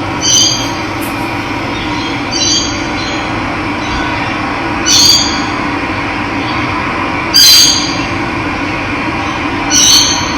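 Steady rush of running water, with a bird giving a short call about every two and a half seconds, five times.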